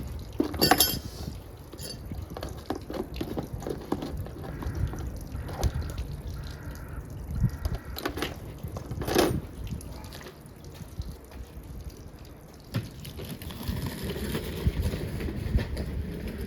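River water splashing and dripping, with two louder splashes, one about a second in and one about nine seconds in.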